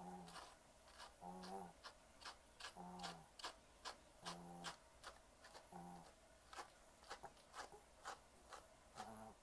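Slicker brush working a mat out of a Maltese's long coat: faint, quick scratchy strokes at irregular intervals, with a few faint short tones in between.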